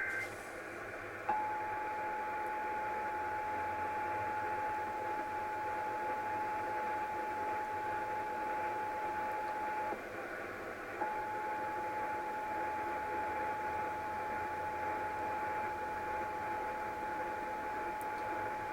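Emergency Alert System attention signal received over a radio: a steady electronic alert tone comes in about a second in, drops out briefly about ten seconds in, then resumes, over a constant radio hiss. It is the warning tone that precedes the spoken monthly test message.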